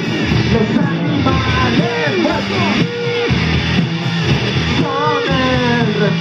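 Rock band playing live, with electric guitar, bass guitar and drums, and a man singing into the microphone over them, holding a few long notes.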